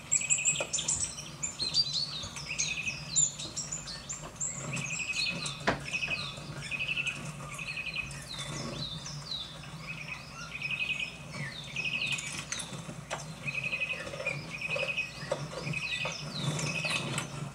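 Small songbirds chirping and calling over and over from a bird video played on a television: quick falling chirps and short repeated trills, with a low steady hum underneath.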